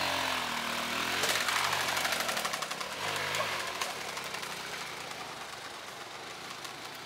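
Honda XR150 dirt bike's single-cylinder four-stroke engine revving up and down several times as it pulls away and climbs a flight of concrete steps, then fading as it moves off.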